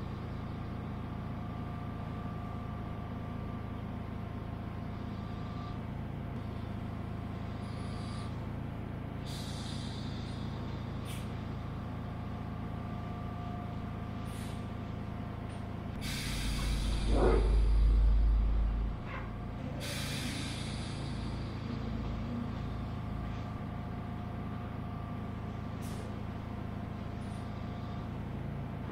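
Steady mechanical hum of an underground passage, with a few faint clicks. About sixteen seconds in, a loud deep rumble swells for about three seconds, a brief squeal sliding in pitch inside it, then dies away.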